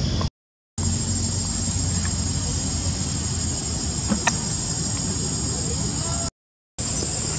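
A steady, high-pitched drone of insects over a low background rumble, broken twice by brief dead silences, with a couple of faint clicks about four seconds in.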